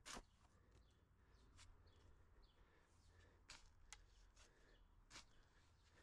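Spade blade cutting and scraping into garden soil: several short, faint strokes, the first right at the start the loudest, others about three and a half to five seconds in.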